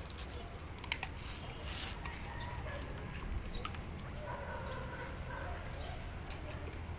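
Chickens clucking faintly, with a few sharp clicks in the first two seconds and a steady low hum underneath.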